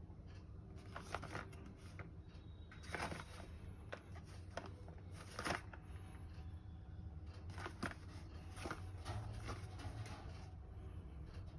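A small cardboard product box handled and turned over in the hands: scattered light rustles and taps, over a low steady hum.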